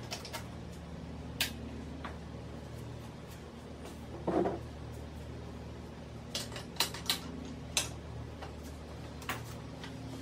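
Metal motorcycle rear paddock stand being handled and set under the rear wheel: scattered sharp clicks and knocks, a heavier clank about four seconds in, and a quick run of clicks a couple of seconds later, over a steady low hum.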